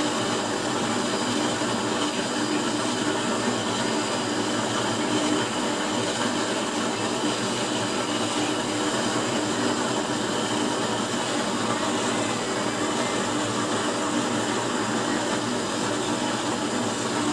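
Used-oil burner stove running: a steady rush of forced air and flame with a low motor hum, unchanging throughout.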